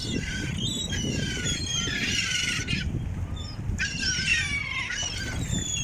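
A flock of gulls calling, with many short squawks and cries overlapping over a steady low rumble.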